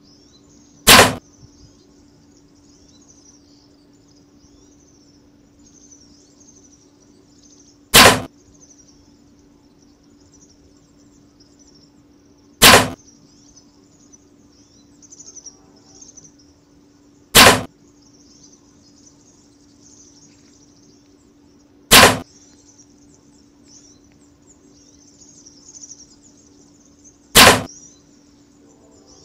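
Six separate hunting-bow shots, each a single sharp crack of the released string and arrow, spaced several seconds apart. Under them runs a faint steady low hum and a high outdoor hiss.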